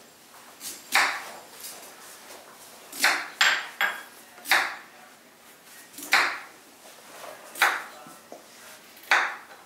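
Kitchen knife slicing through raw beetroot and knocking on a wooden cutting board: about eight single chops at uneven intervals.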